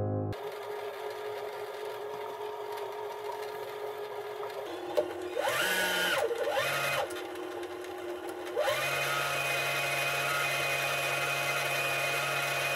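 Janome 3160QDC sewing machine's motor running to wind a bobbin. It runs steadily at low speed, rises and falls in pitch twice around the middle as the speed slider is moved, then settles into a steady higher whine.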